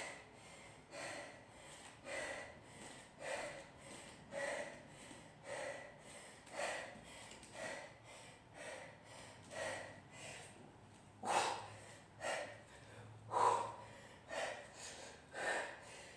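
A woman's sharp, forceful exhalations, about one a second, timed to her 16 kg kettlebell snatch reps; two near the middle are louder.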